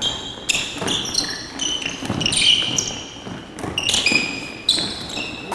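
Basketball sneakers squeaking again and again on a hardwood gym floor as players cut and stop, many short high squeaks with scattered thuds of feet and ball.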